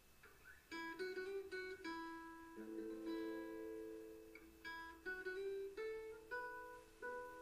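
Background music: a slow melody on a plucked string instrument, each note starting sharply and fading.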